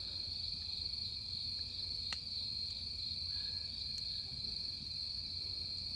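Autumn night crickets chirping in a steady, high-pitched trill. A single sharp pop from the burning wood fire comes about two seconds in.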